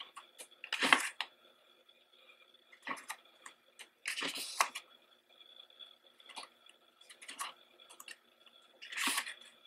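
Pages of a photo book being turned by hand: a run of brief paper rustles and flicks, the loudest about a second in, a longer rustle around four seconds, and another near the end.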